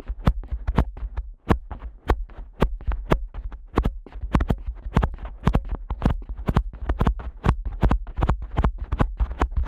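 Fingers flicking the rubber tragus of a Neumann KU100 dummy-head microphone's ears hard and fast: sharp snapping clicks, each with a deep thump, about three a second in an uneven rhythm.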